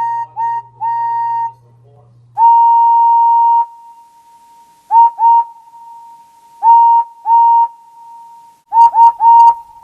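Steam engine whistle sound effect sounding a run of blasts on one steady note: two short toots and a longer one, a held blast of about a second, two pairs of toots, then three quick toots near the end. Each blast scoops up slightly in pitch as it starts and rings on briefly after it stops.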